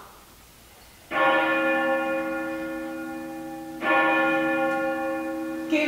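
A bell struck twice, about a second in and again near four seconds, each stroke ringing on with a steady tone that fades slowly.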